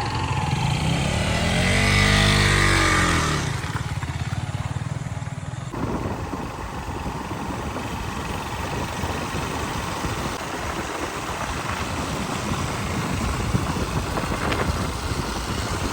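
Motorcycle engine, its pitch rising then falling over the first few seconds as it revs and eases off. About six seconds in the sound changes abruptly to a steady rough rumble of the motorcycle running.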